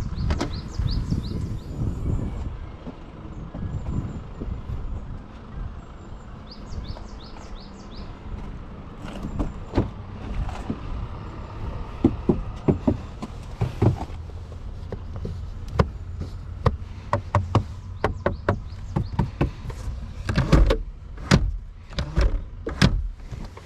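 Toyota GR Supra's 3.0-litre turbocharged inline-six running steadily, with sharp irregular knocks that come thicker in the second half: the knocking sound the car is being shown for.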